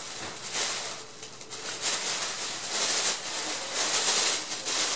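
Shiny foil wrapping paper crinkling and rustling in irregular bursts as a cat paws and kicks at it.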